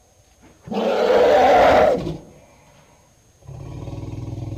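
African elephants calling. About a second in there is a loud, harsh, trumpeting blast lasting just over a second. Then, about three and a half seconds in, a lower, quieter call with a deep buzzing tone follows.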